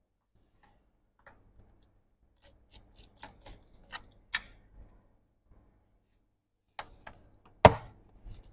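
Light clicks and ticks of hand tools and small screws while the bottom case of a MacBook Pro is unscrewed, clustered a few seconds in, then one sharp knock near the end.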